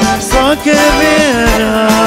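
Live Albanian wedding band music: an ornamented, sliding melody line over a steady drum beat.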